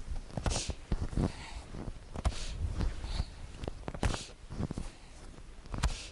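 A person doing a kundalini breathing exercise: sharp breaths in and out with dull thumps of fists pounding the chest, repeated roughly every second, along with rustling of clothing.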